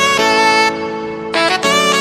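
Background music: a reedy wind instrument plays a melody of long held notes over a steady low drone.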